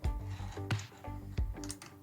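Background music with steady held notes, with a handful of sharp light clicks and taps from small metal brake parts being handled, about five spread over two seconds.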